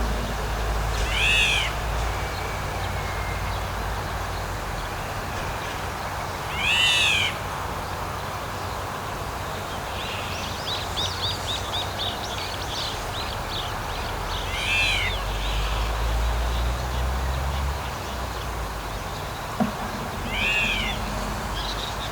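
Black-naped oriole calling: four drawn-out calls, each rising then falling in pitch, several seconds apart, with a quick run of short high notes about ten seconds in. A steady hiss and low rumble underlie them.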